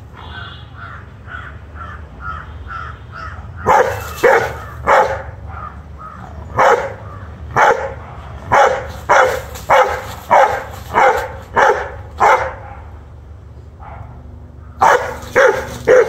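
One-year-old Rottweiler barking angrily at a monitor lizard: about sixteen sharp barks in uneven runs, starting some four seconds in, with softer repeated calls before that.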